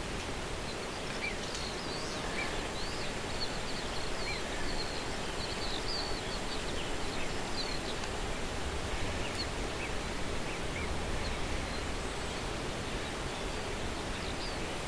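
Small birds chirping repeatedly in short high calls over a steady rushing background noise.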